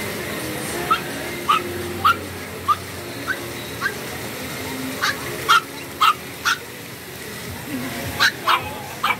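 Peke-a-tese puppy yipping in short, high-pitched yaps about two a second, in three runs with brief pauses between them, over a steady hiss of fountain water.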